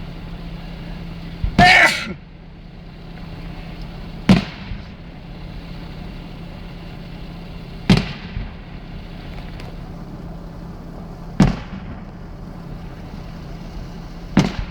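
Fireworks: four sharp booms of aerial shells about three and a half seconds apart, each followed by a short echoing tail. About two seconds in there is a louder, longer burst.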